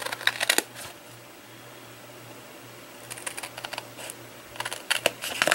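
Long red-handled scissors snipping through scored white paper, in three short runs of quick snips: right at the start, about three seconds in, and near the end.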